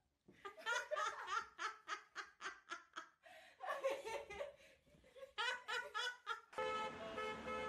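A person laughing hard in rapid repeated bursts, about four or five a second, in three runs with short breaks. Near the end it cuts abruptly to a steady hum with held tones.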